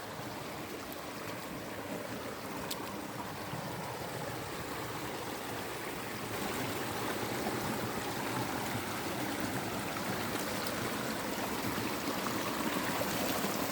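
A small forest creek running and splashing over mossy rocks in a steady rush of water, which grows a little louder about halfway through.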